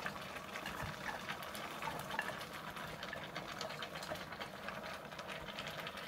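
A large pot of beef stew simmering with faint, steady bubbling, while chopped celery and carrot pieces are slid from a steel bowl into it with soft little patters.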